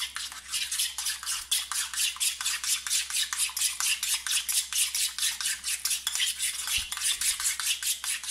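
A metal spoon stirring quickly through a thick tomato-paste and olive-oil pizza sauce in a small bowl, scraping and clicking against the bowl at about five strokes a second.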